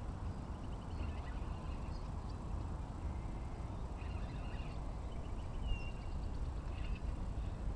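Wind rumbling on the microphone over open water, with faint bird chirps and trills and one short whistled note about two-thirds of the way through.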